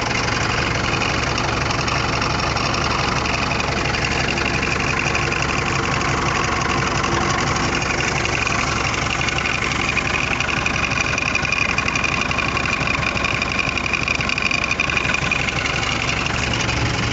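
Heli 3-ton forklift's engine idling steadily.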